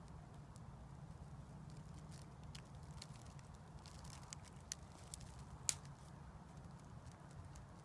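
Faint scattered clicks and crackles over a low steady hum, with one sharper click a little past halfway.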